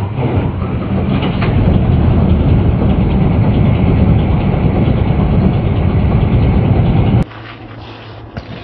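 Volvo FH truck's diesel engine idling steadily and loudly; the sound cuts off abruptly about seven seconds in, leaving a much quieter stretch with a faint click.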